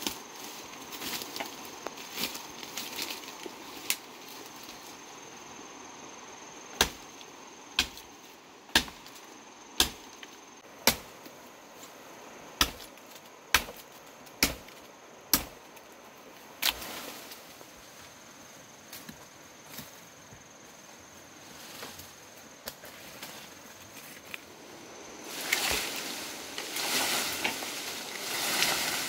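Machete chopping bamboo: a run of about ten sharp strikes, roughly one a second, with a few lighter knocks before them and a longer rustling noise near the end.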